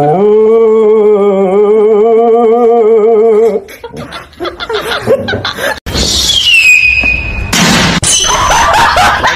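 A white fluffy dog howling: one long, wavering howl lasting about three and a half seconds. Later, a high squeal falling in pitch, then a stretch of noisy scuffling.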